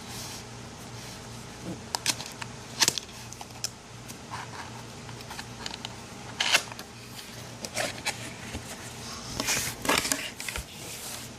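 Cardboard keyboard box being opened by hand: scattered clicks, scrapes and rustles of the flaps and packaging, busiest about two to three seconds in, around the middle, and near the end.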